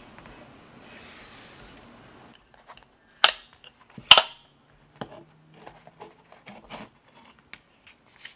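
A paper flipbook and its metal binder clip being handled: a faint hiss, then two sharp clicks about a second apart, then scattered light taps and ticks of paper and clip.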